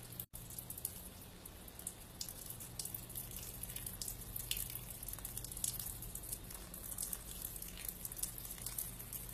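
Saline rinse water from a neti pot running out of a nostril and dripping down, heard as scattered small drips over a steady low hum.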